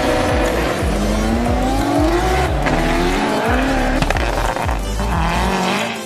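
Drag-racing car accelerating hard down the strip, its engine note rising and dropping back at each of several gear changes, over electronic music with a steady beat.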